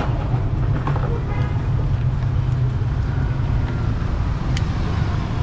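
Steady low rumble of street traffic, with a single sharp click a little over four seconds in.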